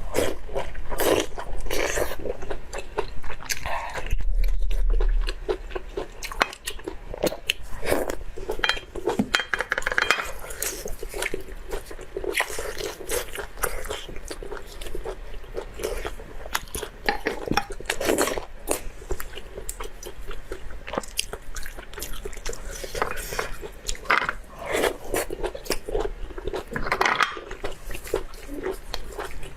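A person biting and chewing food, with many short crunches and wet mouth clicks.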